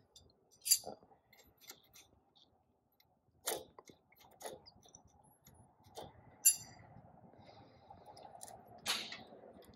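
Steel wrench clicking and clinking against the metal fittings of a diesel tractor's injection pump as the linkage and stop cable are undone: a handful of short, separate clinks, with a faint steady hum in the second half.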